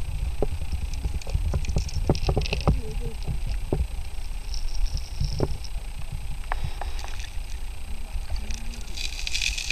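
Muffled low rumble of stream water heard by a camera held underwater over a gravel bed, with scattered clicks and knocks throughout and a brief splashy hiss near the end.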